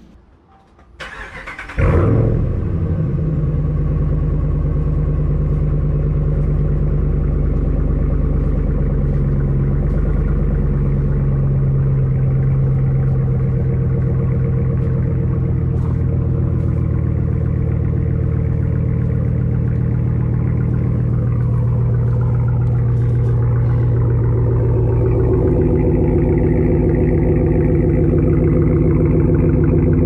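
Ram 1500 R/T's 5.7-litre Hemi V8 cranked by the starter, catching about two seconds in with a short rev flare, then settling into a steady idle through its aftermarket exhaust with new Carven tips. It gets somewhat louder and fuller near the end.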